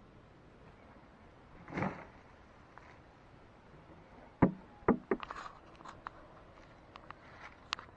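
Handling noise from a camera being picked up and carried: a rustle about two seconds in, then a few sharp, close knocks a little past halfway, followed by scattered lighter clicks and taps.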